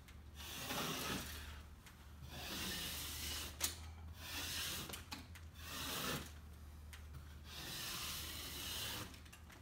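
Small hand scraper scraping painted popcorn ceiling texture, softened with a hot-water and white-vinegar spray, in repeated strokes of about a second each, with a sharp click near the middle.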